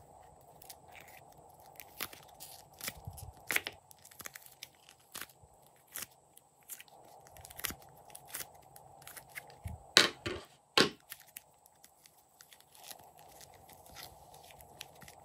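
Soft clay being pressed and peeled out of a clear plastic tray by hand: irregular crackling clicks, with two louder snaps about ten and eleven seconds in.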